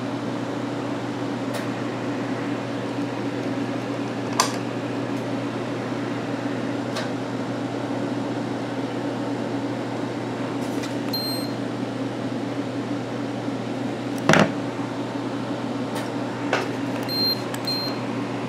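Steady fan noise and electrical mains hum from running ham radio station equipment, with the linear amplifier running. A few light clicks, and short high electronic beeps twice in the second half.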